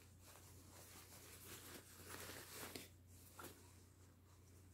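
Near silence with faint rustling of a baby outfit being pulled onto a reborn doll, over a low steady hum.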